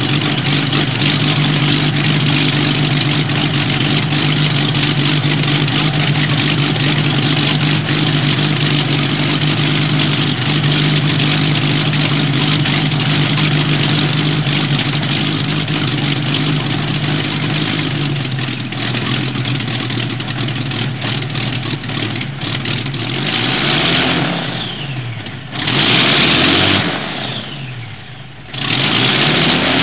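Piston engines of a WWII Luftwaffe twin-engine bomber warming up on the ground, running steadily at first. In the last third they are throttled up and down, the pitch sliding up and down with two loud surges, a brief drop in power, and then loud steady running again near the end.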